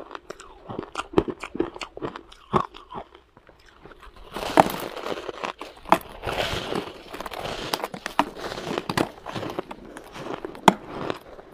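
Compacted shaved ice dusted with matcha and milk powder being bitten and chewed: crisp crunching, sparse at first, then a large bite about four seconds in gives a dense spell of crackling crunches before the chewing settles into steadier crunches.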